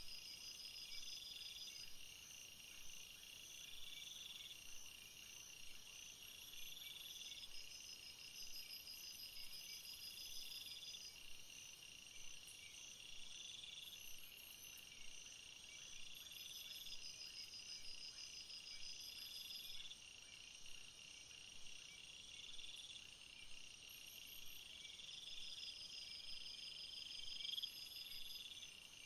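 A chorus of several insects calling at once: high-pitched chirping trills that repeat every couple of seconds, with other callers pulsing steadily above them.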